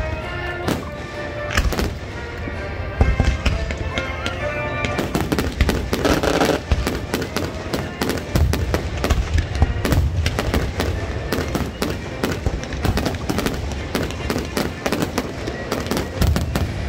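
Aerial firework shells launching and bursting with crackle, the bangs coming thick and fast as a dense barrage from about five seconds in.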